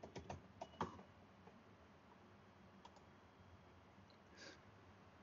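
Faint computer keyboard keystrokes, several in quick succession during the first second, then a single click about three seconds in, over near-silent room tone.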